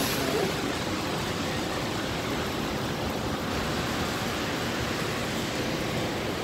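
Steady hiss of rain falling on wet paving.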